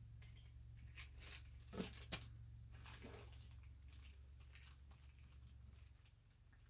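Faint handling of a small plastic packet: a few short crinkles and soft clicks in the first few seconds, then quieter fiddling, over a low steady room hum.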